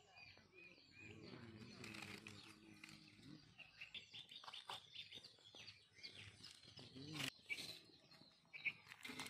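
Faint birds chirping over near silence, with a faint distant voice in the first few seconds and scattered light clicks, one sharper click about seven seconds in.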